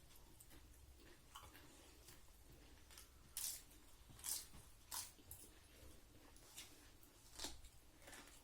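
Faint sounds of a person eating: chewing, with four short, sharper mouth noises in the middle and near the end.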